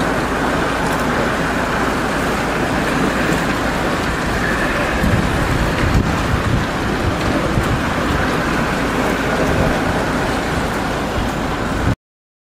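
Steady rushing wind noise buffeting the microphone, heavy in the low end and swelling slightly about halfway through. It cuts off suddenly near the end.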